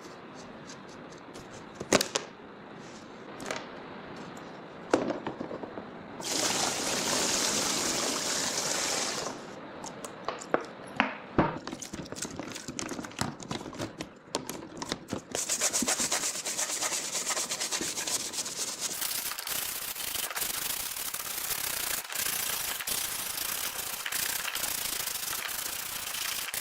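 Sanding of the dirt bike's plastic body parts. Bursts of scratchy rubbing mix with sharp knocks and clicks as the part is handled, then a steady, fast-grained rasp runs from a little past halfway.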